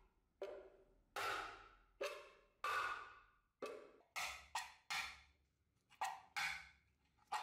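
A Mosin bayonet blade stabbing again and again through the thin metal lid of a tin can clamped in a vise: about a dozen sharp punches at an uneven pace, each followed by a brief metallic ring from the can.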